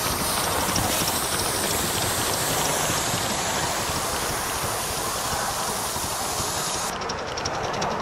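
Gauge 1 live-steam model locomotive running on track: a steady steam hiss with fast, light clicking of wheels on the rails. The clicking becomes sharper and more regular near the end.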